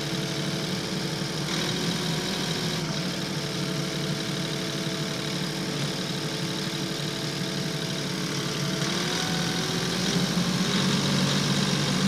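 Compact tractor engine idling steadily, its pitch shifting slightly a couple of times, then running louder near the end as the tractor starts to move.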